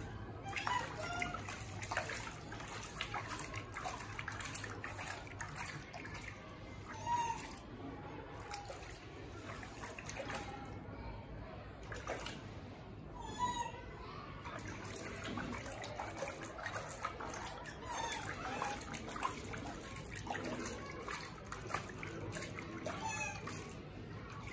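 Water splashing and sloshing in a plastic basin as a baby monkey is washed by hand, with a few short high cries from the monkey now and then.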